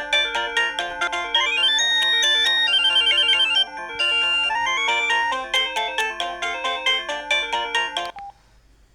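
Samsung SGH-E330N polyphonic ringtone melody playing: a quick synthesized tune of many short notes, several sounding at once, that stops about eight seconds in.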